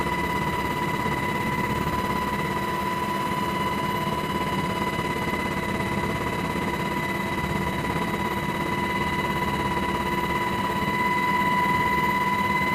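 Helicopter turbine engines and rotors running steadily, with a constant high whine over a low rumble, growing slightly louder near the end.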